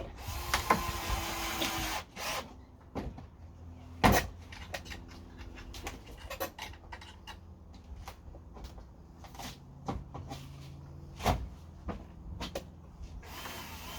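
Wooden shed panels and tools being worked loose and handled: a scraping stretch at first, then scattered knocks and clatter, with a sharp knock about four seconds in and another about eleven seconds in.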